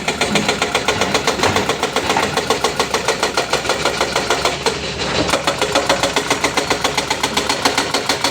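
Hyundai excavator's diesel engine running steadily, with an even pulsing of about six beats a second and a brief drop about five seconds in.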